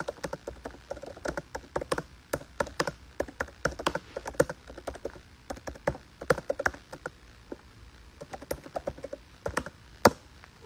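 Typing: a run of quick, irregular taps and clicks, with a brief lull about seven seconds in and a sharper click near the end.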